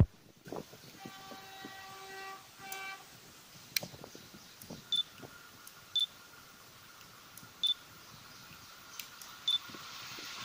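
Distant approaching express train behind a WAP-7 electric locomotive: a faint running noise that slowly grows louder. A distant horn sounds about a second in, one long blast and then a short one. A few short, high chirps are heard every second or two.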